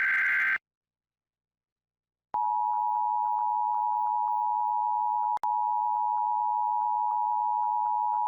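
Emergency Alert System broadcast signalling. A burst of SAME digital header data, a buzzy two-pitch warble, cuts off about half a second in. After a short silence a steady alert attention tone begins about two seconds in and holds. It drops out briefly with a click about halfway through. The tone announces the coming tropical storm warning.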